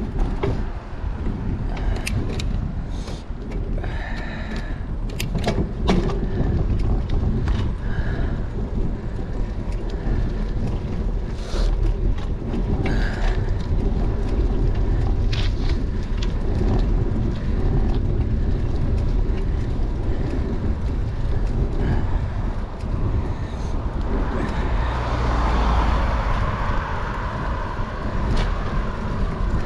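Wind buffeting a bicycle-mounted GoPro's microphone over the rumble of bike tyres on asphalt, with scattered clicks and rattles from the bike. Near the end a car passes going the other way.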